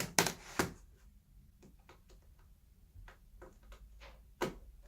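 Light clicks and ticks of a small screwdriver and screws being taken out of a laptop's bottom panel: a few sharper clicks at the start, scattered faint ticks, and one louder click near the end.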